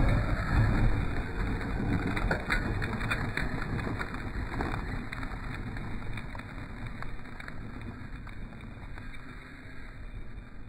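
HBX 903A 1/12-scale brushless RC car running, a low rumble with scattered clicks and crackles that fades steadily away.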